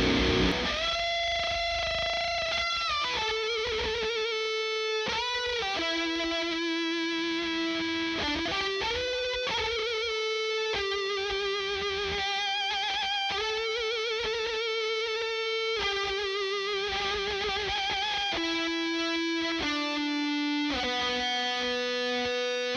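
Distorted electric guitar lead solo played through a 16-ohm Celestion Vintage 30 speaker driven by a Blackstar 100-watt 6L6 valve amp head. It plays long sustained single notes with wide vibrato, slides and bends. A louder multi-tracked rhythm part cuts off about half a second in.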